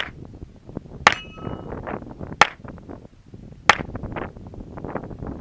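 Browning Buck Mark .22 LR semi-automatic pistol fired four times, about one shot every 1.2 seconds, with a steel target ringing after the second shot, a hit.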